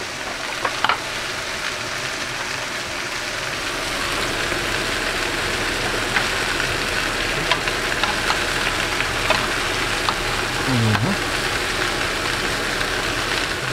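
Ribeye and striploin steaks sizzling steadily in two pans, one of them in butter with garlic cloves and rosemary being basted with a spoon. The sizzle grows a little louder about four seconds in, with a few light clicks over it.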